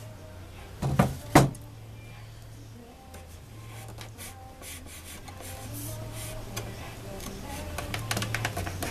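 Wooden dowels being knocked into drilled 3/8-inch holes: two sharp knocks about a second in, then a run of lighter taps and clicks near the end, over a low hum that comes and goes.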